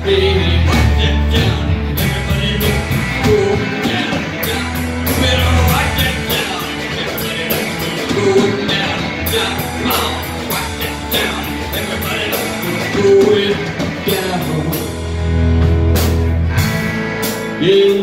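A live rock band playing: electric guitars over a drum kit, with regular cymbal and drum hits and sustained low notes underneath.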